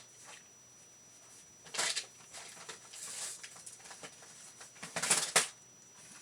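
Rustling and handling noises from a box of craft supplies being rummaged through, in a few short bursts, the loudest about five seconds in.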